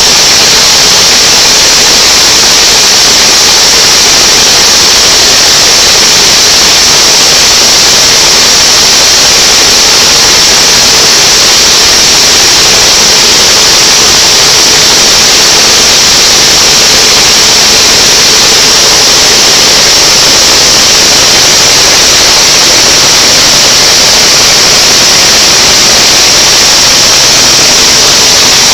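Plastic drying machine running, its high-pressure blower giving a loud, steady rushing noise with a strong high hiss and no change throughout.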